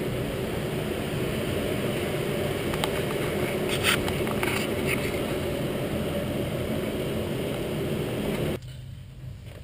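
Steady low workshop background rumble with a few faint clicks about three to four seconds in; it cuts off abruptly near the end.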